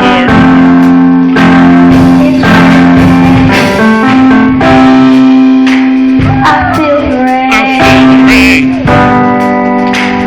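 Live gospel worship music: loud instrumental playing with long held chords and a gliding melodic line.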